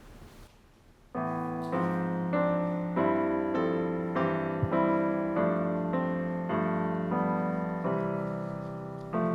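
Keyboard playing a slow hymn introduction in struck chords. The chords begin about a second in, each one fading before the next.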